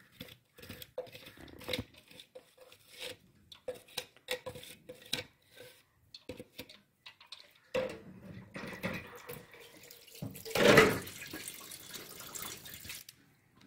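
Water in a kitchen: scattered drips and small splashes, then a short rush of running water that is loudest about eleven seconds in and stops shortly before the end.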